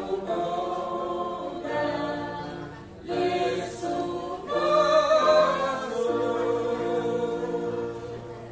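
Small mixed-voice church choir singing a hymn in the Thao language, closing on a long held chord about six seconds in that fades toward the end.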